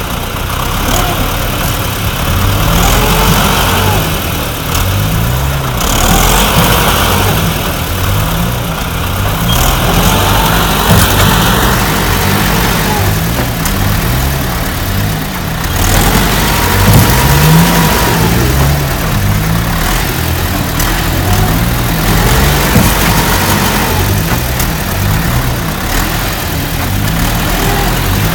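Vehicle engine revving up and dropping back again and again, a rise and fall every couple of seconds.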